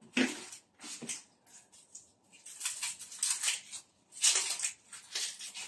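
Dry onion skins crackling and rustling in irregular bursts as onions are peeled by hand, with a short knock near the start as a peeled onion is set into a plastic colander.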